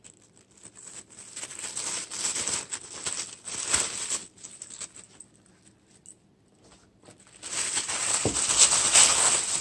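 Wrapping paper crinkling and rustling as a wrapped gift is handled and opened: irregular rustles for the first few seconds, a quiet pause, then louder, busier crinkling near the end.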